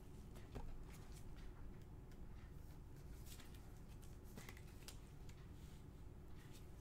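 Faint handling of a trading card being slid into a rigid clear plastic holder: a few soft clicks and rustles over a low steady room hum.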